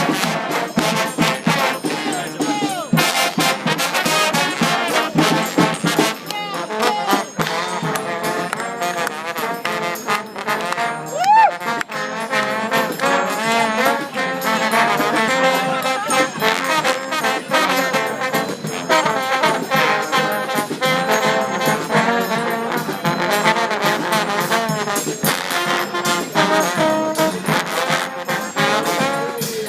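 Trombone choir playing: many trombones sounding together in harmony. About eleven seconds in there is a brief loud sliding note.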